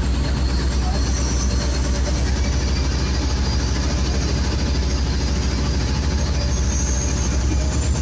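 Motorboat engine running steadily under way, a low drone with a fast even throb, mixed with the rush of water and wind.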